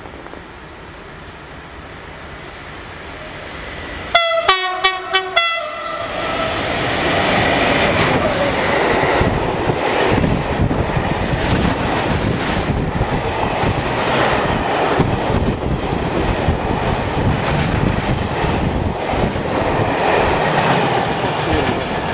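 Freight train approaching with a growing rumble, then its locomotive gives a quick series of about four short horn blasts, the pitch dropping on the last one. The train then passes close by, with steady rolling noise and the clickety-clack of wheels over rail joints.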